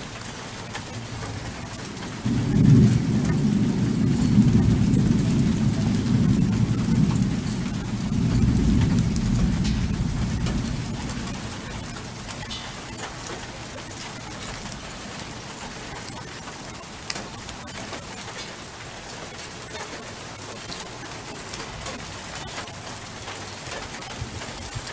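Steady rain falling. About two seconds in a long roll of thunder breaks in, rumbles for several seconds and fades away.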